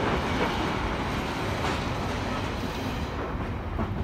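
Freight train wagons (tank containers) rolling past: a steady rumble and rattle of wheels on the rails, dying away near the end as the last wagons go by.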